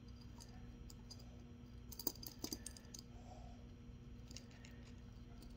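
Faint scattered clicks of small sinker weights on fishing line being handled and slid by hand, with a short cluster of clicks about two seconds in.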